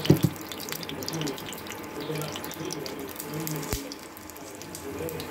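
Hot oil sizzling and crackling in a steel saucepan as whole spice seeds fry in it for a tadka. A sharp knock comes right at the start.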